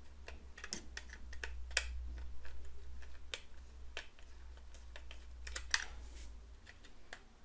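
Small irregular clicks and scrapes of a screwdriver tip working the screws of a plastic power strip's cable clamp. A low steady hum sits underneath and stops near the end.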